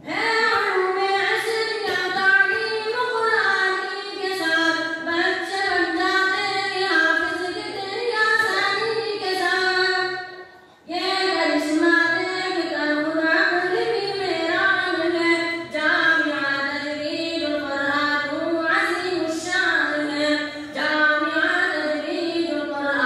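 A boy singing a tarana (madrasa anthem) into a microphone, in a melodic, drawn-out line, with a brief pause about ten seconds in before he carries on.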